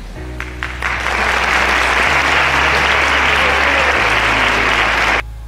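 Audience applause: a few scattered claps, then from about a second in a dense, steady round of clapping from the hall that breaks off suddenly near the end.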